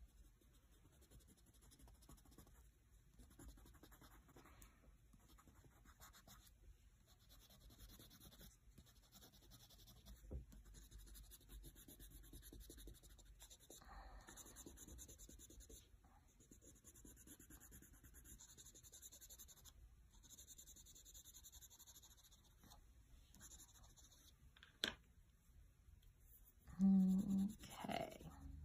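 Faint scratching of a wax crayon rubbed back and forth across sketchbook paper as an area is coloured in. Near the end comes a brief, louder clatter as crayons are handled and knocked together in the hand.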